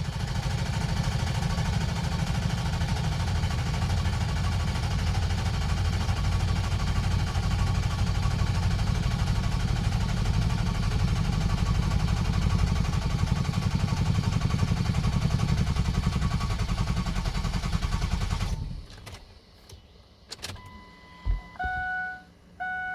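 Ford 6.0 Power Stroke V8 turbo-diesel being cranked by the starter for about eighteen seconds without catching, then the cranking cuts off abruptly: a long-crank no-start. A few clicks and a repeating two-tone electronic chime follow near the end.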